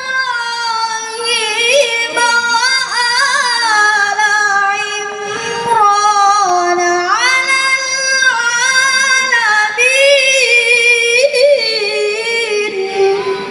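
A child qari's high voice reciting the Quran in melodic tilawah style, drawing out long ornamented notes with wavering turns in pitch, fading away near the end.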